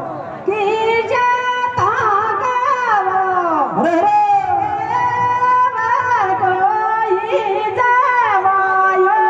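Rajasthani Teja gayan folk music: a continuous high melody line of long held notes joined by deep pitch slides, with a sharp downward swoop near the start and another about four seconds in.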